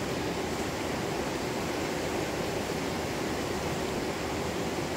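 Steady rushing of a shallow, muddy river flowing around rocks.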